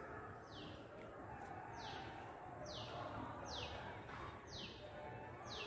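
A bird calling over and over: a short, high note falling in pitch, about once a second, over faint outdoor background noise.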